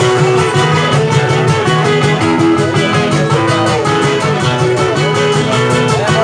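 Live guitar group playing a merengue, the guitars picking and strumming over a steady, quick beat.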